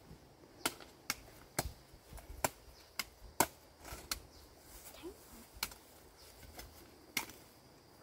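A series of sharp, irregular knocks or clicks, about a dozen, one every half second to a second.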